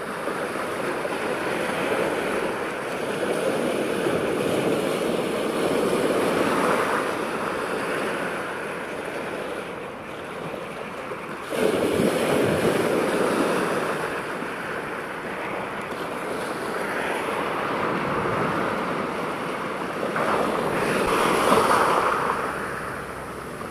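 Surf breaking and washing in around a wader, a steady rush that swells and fades with each wave. One wave breaks with a sudden surge about twelve seconds in, and another loud swell comes near the end.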